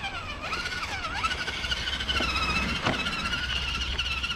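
Electric motor of an RC monster truck running with a high, slightly wavering whine that dips in pitch and recovers during the first second, then holds steady. A couple of light knocks come through a little after the midpoint.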